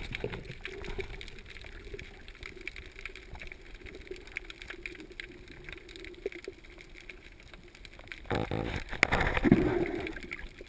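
Underwater sound picked up through a camera housing while diving: a low steady hum of water with scattered faint clicks, then a louder rush of water noise from about eight seconds in that fades near the end.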